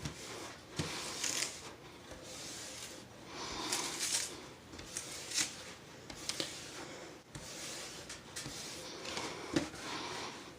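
Diamond painting canvas panels being handled and moved about: intermittent rustling and rubbing, with a few light knocks.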